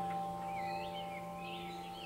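Ambient background music: bell-like notes ringing on and slowly fading, with birds chirping over them.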